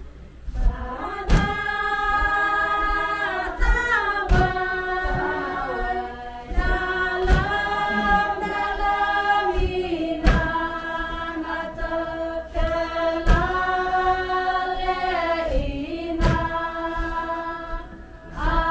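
A group of Kenyah women singing a traditional song together in long held phrases that glide from note to note. A sharp knock sounds about every three seconds.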